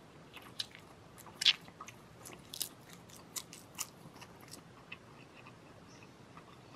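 Mouth noises of a man eating a fried egg straight off a plate: a string of short wet smacks and slurps over the first four and a half seconds, then quieter chewing.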